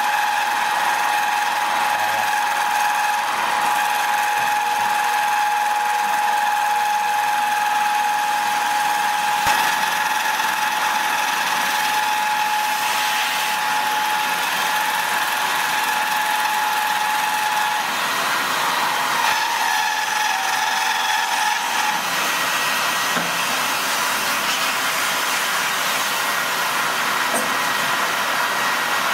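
Bench milling machine running, its small end mill cutting through aluminium bar: a steady high whine over the hiss of the cut. The pattern of the whine shifts near the end.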